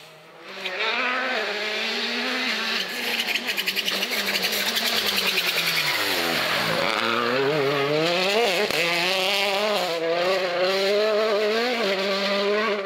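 Hyundai i20 Coupe WRC rally car's turbocharged four-cylinder engine at high revs. Its pitch drops sharply as it brakes and shifts down for a bend about six seconds in, then climbs again through several quick upshifts as it accelerates away.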